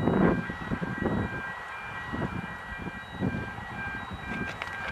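A distant Isle of Man Railway steam train running past, heard as irregular low rumbling that is loudest at the start. A faint high-pitched tone repeats in short dashes, and there are a few light clicks near the end.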